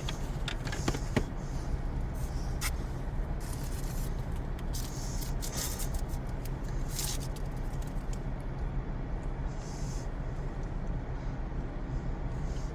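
A milkshake being sipped through a straw, a few short sucking sounds and small clicks, over a steady low hum like a car interior with the engine running.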